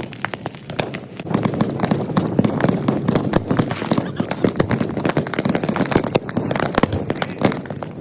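Fireworks and firecrackers going off in dense rapid succession, a continuous crackle of pops and bangs that thickens about a second in, the whole sped up to three times speed.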